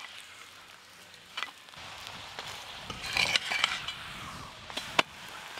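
Metal spatula scraping and tapping on an iron tawa as a lachha paratha frying in oil is lifted and turned over, over a light sizzle. There are a few sharp clinks, the sharpest near the end.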